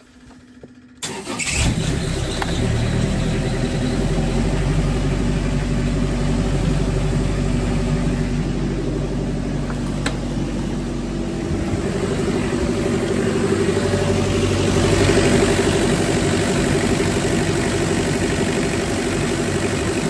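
Kubota KX71 mini excavator's diesel engine starting about a second in, catching at once, then running steadily at idle. It is running on a newly fitted electric fuel lift pump that has cured its no-start.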